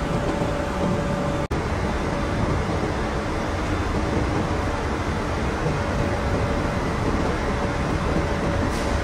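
Steady mechanical din of cement plant machinery: a dense, even noise with a constant high hum running through it, cut off by a brief dropout about one and a half seconds in.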